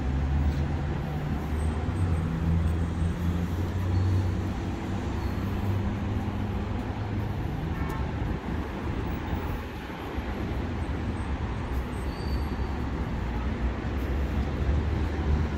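Steady city road traffic: cars and buses driving past with a continuous low engine hum and tyre noise.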